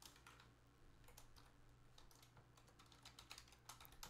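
Faint computer keyboard typing: irregular, scattered keystrokes over a low steady electrical hum.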